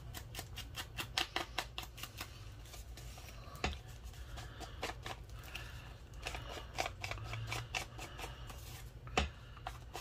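Ink dauber dabbing ink onto the edges of a paper tag: a run of quick, uneven taps, a couple of them louder.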